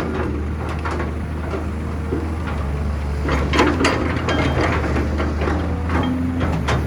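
Heavy construction machinery, an excavator and dump truck at work, with a diesel engine running steadily and a burst of clanking and rattling from about three seconds in.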